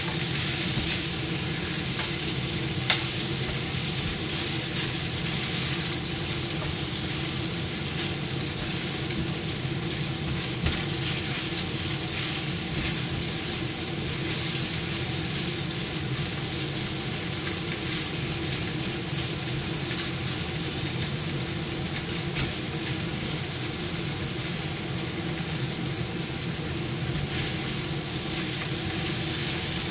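Chicken pieces sizzling as they fry in a nonstick frying pan, stirred with a spatula, with a few sharp taps of the spatula on the pan.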